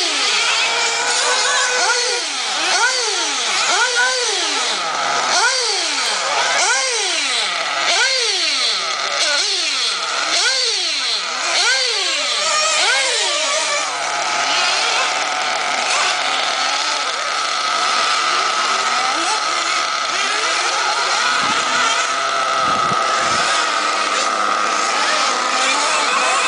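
Radio-controlled model car's motor revving up and falling back over and over, about once every second and a quarter. About halfway through it settles into a steady high whine.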